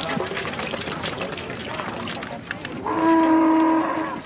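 A vehicle horn sounds one steady, held blast of about a second near the end. Before it there is a busy background of overlapping voices and calls.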